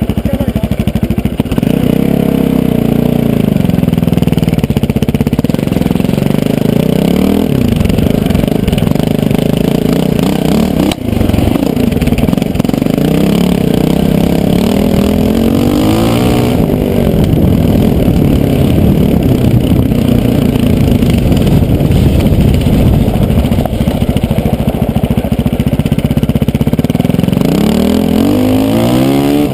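KTM LC4 620's single-cylinder four-stroke engine under way, its pitch rising and falling with the throttle, with a short dip about eleven seconds in and rising revs again around the middle and near the end.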